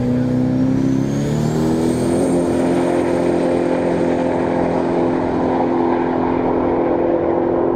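Twin-turbocharged GM LSX 427 V8 of a drag-racing Holden VP Calais at full throttle as the car launches and runs away down the strip. The engine note climbs over the first couple of seconds and then holds steady and loud, with a thin high whine rising alongside it.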